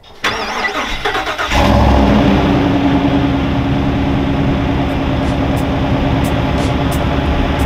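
Cold start of a Chevy 2500 HD's 6.6 L L8T gas V8: the starter cranks for about a second, the engine catches with a brief rev flare, then settles into a steady idle, heard at the tailpipe.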